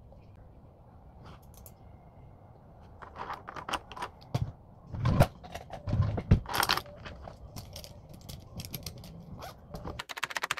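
Pens and stationery handled on a wooden table: a run of clicks, light rattles and taps as pens are picked up and set down, starting about three seconds in, with a few heavier knocks between about four and six seconds.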